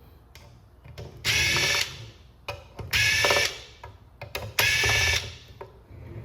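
Cordless power driver running in three short bursts, each about half a second long and roughly a second and a half apart, backing screws out of a plastic housing.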